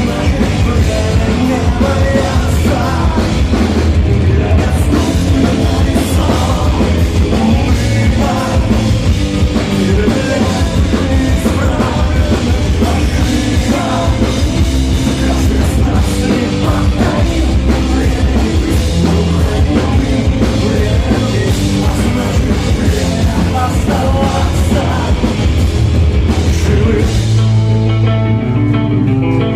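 Live rock band playing loud, with drum kit, guitars and singing. Near the end the drums drop out and steady held notes ring on.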